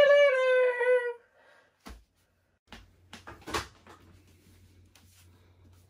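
A woman's high, drawn-out vocal cry lasting about a second, falling slightly in pitch. After it come a few faint knocks and rustles over a low steady hum.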